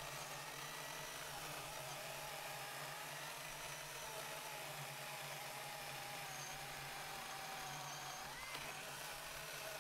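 Milwaukee 18-volt battery chainsaw, a high-torque, low-chain-speed saw, running under load while its chain cuts through a honey locust log. It is heard faintly as a steady whine whose pitch wavers slightly and sags near the end.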